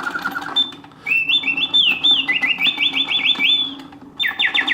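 Late-1800s Bontems singing bird cage's mechanical birdsong, a bellows-blown whistle imitating a songbird. A trill ends early on, and after a short break comes a long warble of quick rising and falling notes. After a second short break, rapid falling sweeps start near the end, all over a faint steady hum from the clockwork mechanism.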